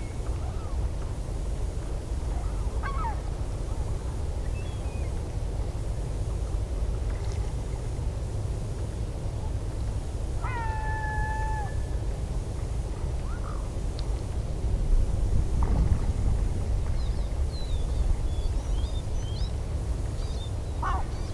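Gulls calling now and then over a steady rumble of wind on the microphone. The clearest call, about halfway through, is a drawn-out cry held for about a second. Shorter calls come near the start and the end, with faint high chirps shortly before the end.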